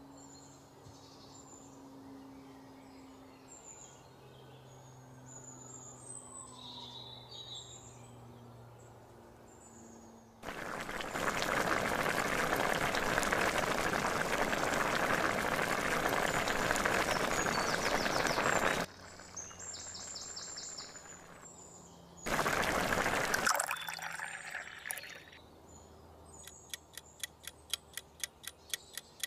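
Faint bird chirps for the first ten seconds, then a loud, steady sizzling hiss for about eight seconds as a liquid biryani masala mixture is poured into the hot pot of browning mutton. A second short burst of hiss follows, and near the end come quick, even ticks, about three a second.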